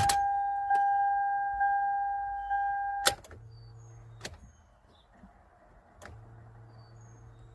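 The Toyota Sienna's electronic warning chime sounds steadily and stops with a click of the ignition key about three seconds in. A faint hum follows twice, the fuel pump priming, with key clicks in between. The starter makes no sound at all: it is not engaging, with not even a click.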